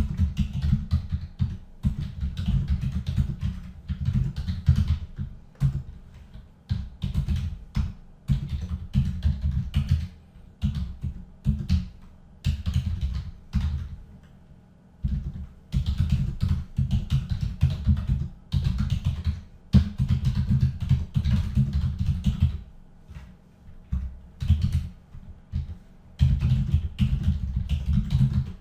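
Typing on a computer keyboard: quick runs of keystrokes with short pauses between words and phrases as a sentence is typed out.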